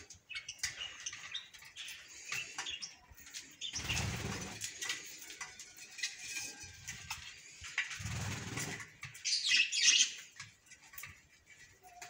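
A flock of budgerigars chattering and chirping while they feed and jostle at a plate of greens, with wing flaps and small clicks. The chatter is loudest in a burst just before the tenth second.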